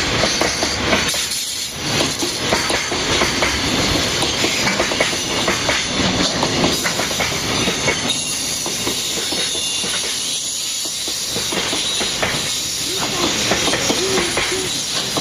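Freight train wagons rolling past, wheels clacking over the rail joints in a steady run of clicks over loud rumbling rail noise, with short wheel squeals near the end.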